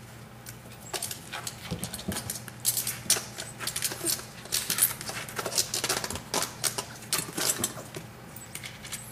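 A puppy's claws scratching and clicking against a door sill in an irregular run of short, sharp scrapes.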